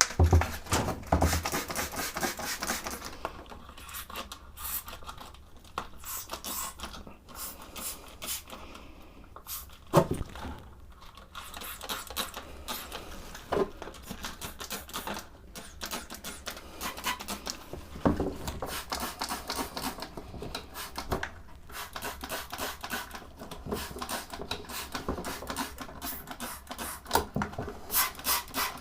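Hands-on cleaning of a Naumann 65 vintage sewing machine: an irregular string of scrapes, clicks and light taps as the machine and its parts are worked over, with a few sharper knocks.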